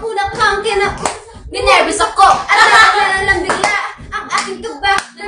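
Several young women's excited voices and laughter, no clear words, with hand clapping; a few quick claps near the end.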